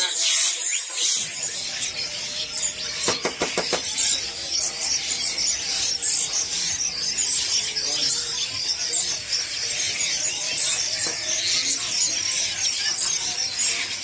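Many small songbirds crowded in plastic crates, chirping and twittering at once in a dense, continuous chatter, with a brief rattle about three seconds in.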